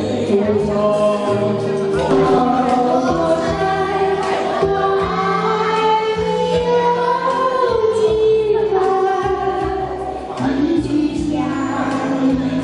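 Karaoke singing into handheld microphones over a backing track.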